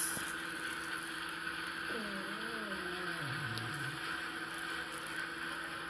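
Steady hiss of recorded rain, with a faint wavering tone that slides downward about two seconds in.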